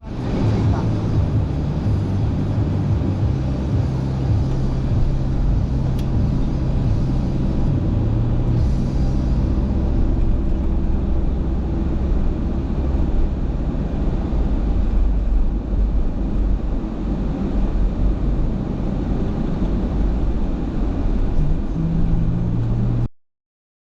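Car engine and road noise heard from inside a moving car: a steady low rumble whose engine note shifts up and down. It cuts off suddenly near the end.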